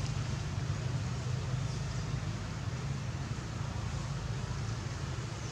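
A steady low rumble with an even hiss above it, unchanging throughout, with no monkey calls.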